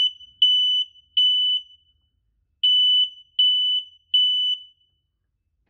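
Smoke alarm horn sounding on test in the temporal-three pattern: two groups of three loud, high-pitched beeps with a pause between them, stopping about five seconds in.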